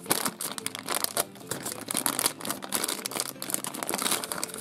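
Clear plastic bag crinkling and rustling in a dense run of quick crackles as hands handle it and work it open to free a plastic figurine.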